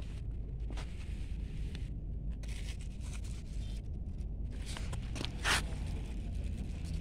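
Rustling and scraping close to the microphone as a hand moves through cucumber vines and leaves, over a steady low rumble; one short, louder rustle about five and a half seconds in.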